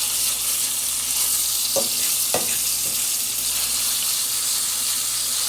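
Thin steak sizzling in hot oil in a frying pan, a steady hiss.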